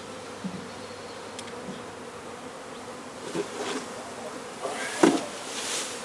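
Honey bees buzzing steadily around an opened hive, a constant hum. A few short knocks and scrapes come in the last seconds, the loudest about five seconds in.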